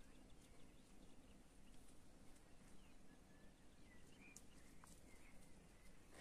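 Near silence: faint outdoor ambience with a few short, faint bird chirps in the second half.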